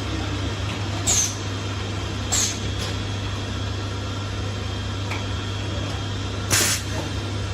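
High-frequency plastic welding machine running with a steady low hum, broken by three short hissing bursts: about a second in, about two and a half seconds in, and a longer one near the end.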